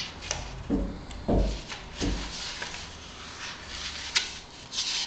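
Paper pages of a hardcover picture book being turned and the book being handled: several short rustles and a few soft knocks.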